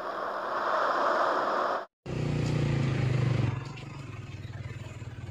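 A rushing, wave-like sound effect cuts off sharply about two seconds in. Then comes street noise with a vehicle engine running close by, loudest for about a second and a half before settling into steady, quieter traffic sound.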